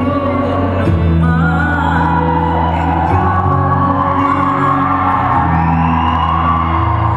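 Recorded dance music with a singing voice over sustained bass notes that change every second or two.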